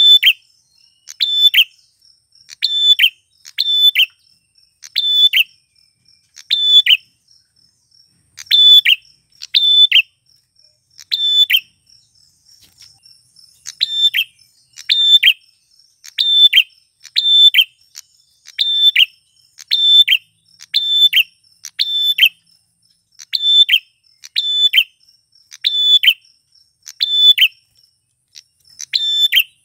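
Male grey prenjak (prinia) calling loudly: a run of sharp, shrill notes that drop slightly in pitch, about one a second, pausing briefly about halfway through. A faint, fast, steady high ticking runs beneath it for much of the time.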